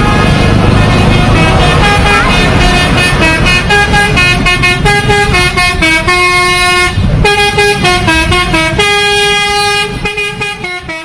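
Telolet basuri horn playing a melody as a run of stepped notes, over a low rumble in the first half; it fades out near the end.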